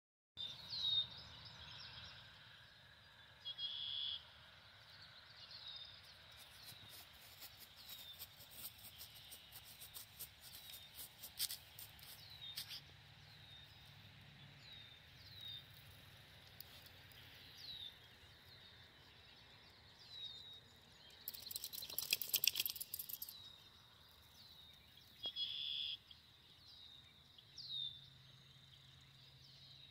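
Birds chirping outdoors: a short chirp repeated every second or two, with a few other calls mixed in. There is a run of quick clicks in the first half and a louder burst of rustling noise about three quarters of the way through.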